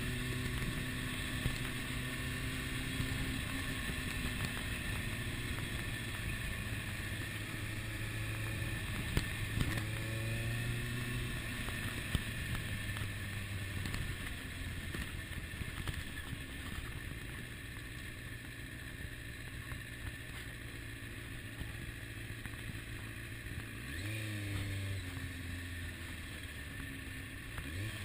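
Onboard sound of a 2001 Kawasaki ZX-6R's inline-four engine running at low revs in slow traffic, under a steady haze of wind and road noise. The engine note shifts briefly about ten seconds in and again twice near the end as the throttle is worked.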